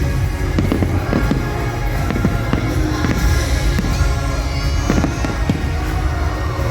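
Fireworks bursting and crackling in quick, irregular succession over loud show music and a deep rumble.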